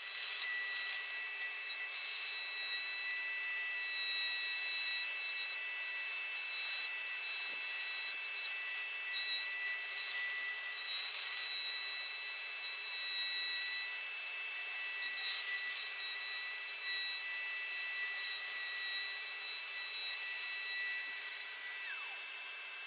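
Trend cordless palm router running with a steady high whine as its bit cuts a shallow recess into a wooden tabletop, with a dust extractor drawing through a hose alongside. Near the end the router's whine drops away as it is switched off, while the extractor keeps running.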